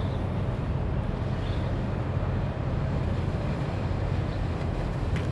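Wind buffeting the microphone: a steady low rumble with a hiss above it.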